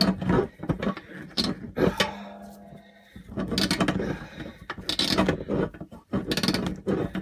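Metal parts of an old cast-iron wood stove being worked with hand tools: about five spells of rapid metallic clicking and scraping with short pauses between.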